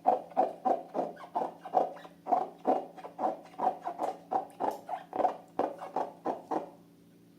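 Slime being squeezed and poked by hand, a quick run of wet, sticky clicks and squelches about three or four a second, stopping shortly before the end.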